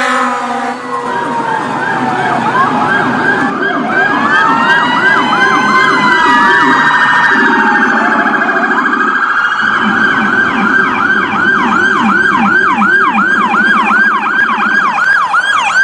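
Electronic emergency-vehicle siren running through its tones: slow rising and falling wails overlap fast yelps, with a second, lower tone pulsing beneath. From about ten seconds in it settles into a fast yelp at about three sweeps a second.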